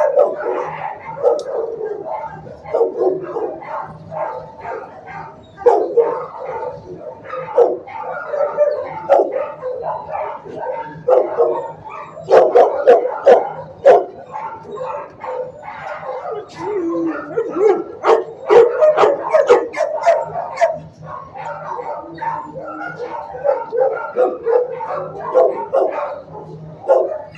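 Shelter dogs in their kennels barking and yipping, with short barks following one another almost without a break.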